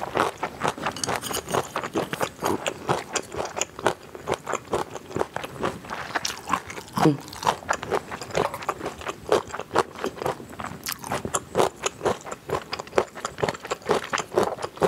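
Close-miked chewing of a mouthful of chilled pigs' feet and crisp vegetables: irregular crunching with wet mouth clicks, and a brief falling hum about seven seconds in.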